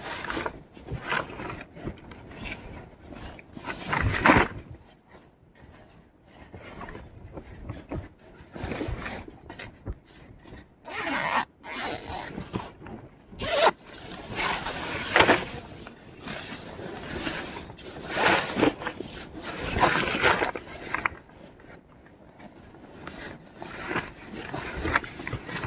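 Irregular rustling and scraping in short bursts of varying length, with a few sharper strokes.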